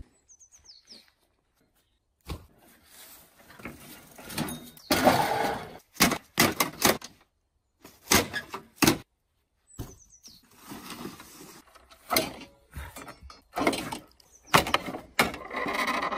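Irregular knocks, scrapes and clatter from a walk-behind lawnmower and a bicycle being hauled and shifted about over grass and wooden steps, with two short silent gaps.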